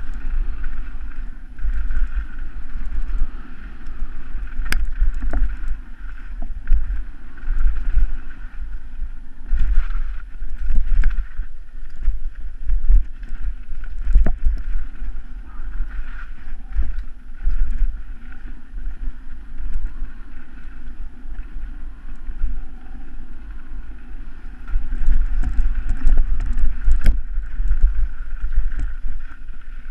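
Wind buffeting a helmet camera's microphone during a fast mountain bike descent on a dirt trail, a loud steady rumble with the rattle of the bike over rough ground. A few sharp knocks stand out, a couple of them near the end.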